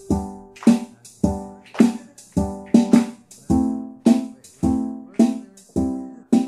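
Background music: an instrumental passage of chords struck about twice a second, each starting sharply and fading before the next.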